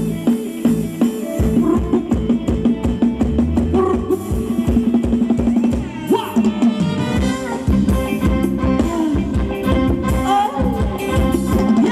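Live band playing Thai ramwong dance music, with a steady drum-kit beat under a melody line.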